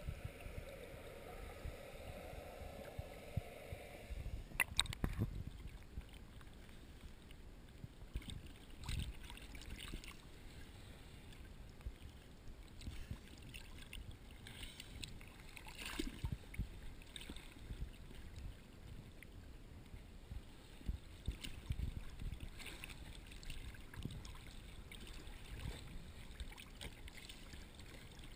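Muffled sea water sloshing and lapping against a GoPro Hero 2 in its waterproof housing: a low rumble with a few sharp knocks and swells as waves wash over the camera.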